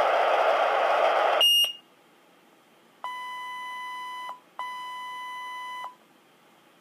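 Motorola Minitor V fire pager: the open radio channel hisses and cuts off with a short squelch-tail tone about a second and a half in. Then the pager gives two long, steady, identical beeps of a little over a second each.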